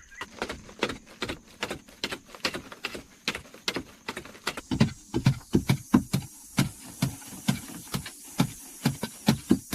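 Repeated blows of a hand tool, about two to three a second, becoming heavier thuds from about halfway through, over a steady high hiss.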